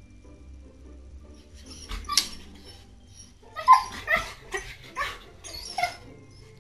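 Siberian husky giving about five short, high-pitched cries in quick succession, the first and loudest a little over three and a half seconds in, after a brief sharp sound about two seconds in. Quiet background music runs underneath.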